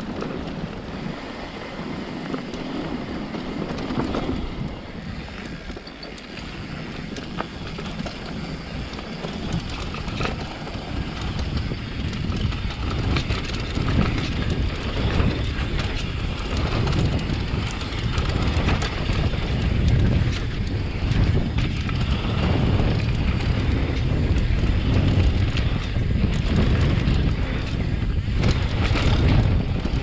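Wind buffeting the action camera's microphone on a fast mountain-bike descent, with the tyres rolling on a dirt trail and the bike rattling over bumps in a run of short clicks. The wind rumble grows louder from about ten seconds in.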